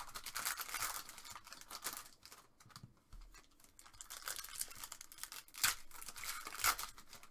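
Foil wrapper of a trading-card pack being torn open by hand and crinkling, with a couple of sharper crackles near the end.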